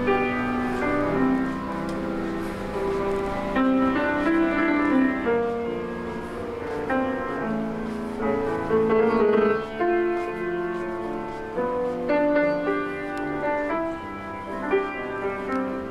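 Piano music in a classical style, a steady run of held notes and chords.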